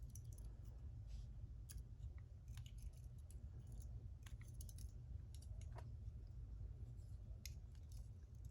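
Faint, scattered metallic clicks of small lock parts and tools being handled as a Mul-T-Lock MT5 lock core is taken apart, over a steady low hum.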